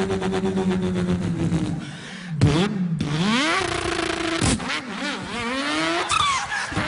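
A man imitating a car engine with his voice: a steady held note, then a few sharp breaks each followed by a rising sweep in pitch, like an engine revving up through gear changes, with a falling glide near the end.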